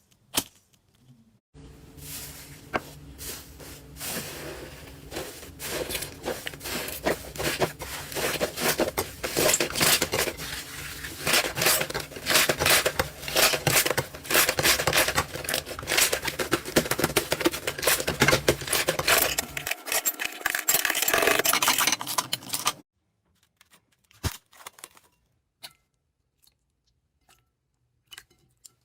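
Slime being squished and worked by hand, giving a dense run of crackling and popping that grows louder over the first several seconds. The crackling stops abruptly partway through, and only a few scattered clicks follow.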